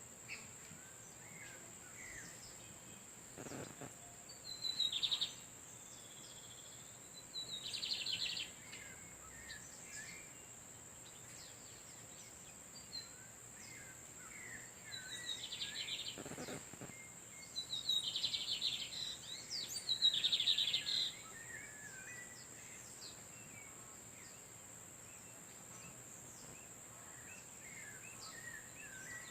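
Male lined seedeaters (Sporophila lineola) singing back and forth: short buzzy song phrases come again and again, with a cluster of three in a row about two-thirds through, mixed with small chirps. A steady high-pitched hum runs underneath.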